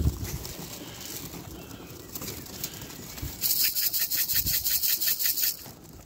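Domestic pigeons flapping their wings close by: a fast run of wingbeats, about eight a second, lasting some two seconds from about halfway in. A low thump comes right at the start.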